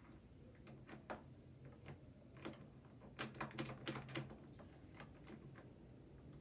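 Light clicks and taps of sewing machine parts being handled during servicing, scattered at first and then coming in a quick run about three to four seconds in.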